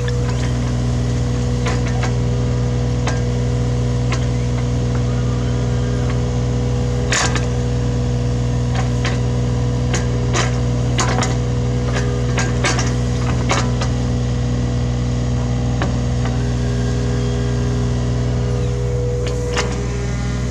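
Hitachi Zaxis 33U mini excavator's diesel engine running steadily, with repeated sharp knocks and scrapes of the bucket digging into soil, the loudest about seven seconds in.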